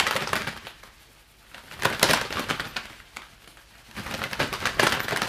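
Two leather gloves flapped together as a foley imitation of a bird's wings flapping: three bursts of quick fluttering slaps, with short pauses between.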